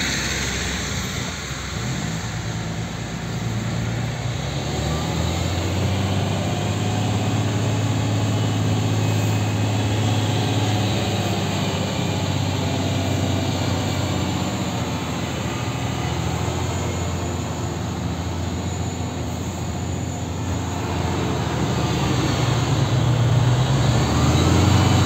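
Heavy truck's diesel engine running as the truck pulls away and drives slowly, heard from inside the cab; the engine hum grows louder about five seconds in and rises again near the end.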